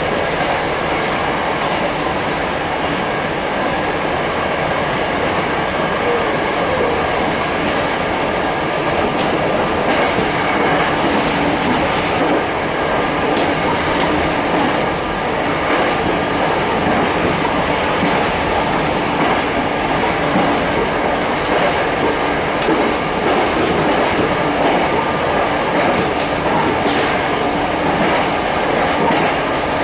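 Kitakinki Tango Railway diesel railcar running, heard from inside the car: steady running noise with the wheels clicking over rail joints, the clicks coming more often from about ten seconds in.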